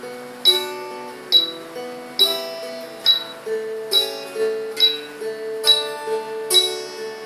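Acoustic guitar with a capo played fingerstyle: single notes of broken chords plucked in a steady pattern about two a second, each left ringing over the next.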